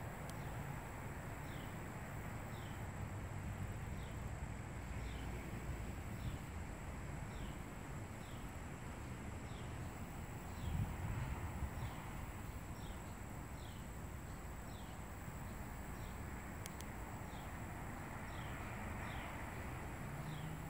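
Rural outdoor ambience: a steady low rumble, with a short high chirp that falls in pitch and repeats about once a second, and a thin steady high tone.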